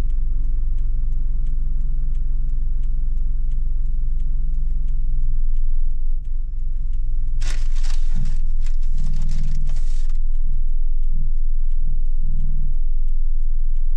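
Car interior road rumble while driving, with faint steady ticking about two or three times a second. Partway through comes a brief hiss, followed by a low pulsing hum.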